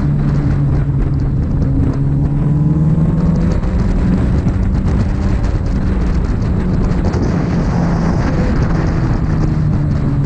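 Motorcycle engine running at a fairly steady speed while riding, its pitch shifting only slightly, with wind rushing over the microphone.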